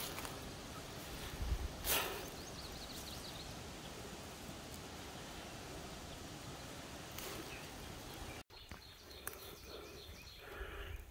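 Steady outdoor background noise with a brief rustle about two seconds in and a few faint high chirps just after. It changes suddenly about eight seconds in to a quieter background with a few light clicks.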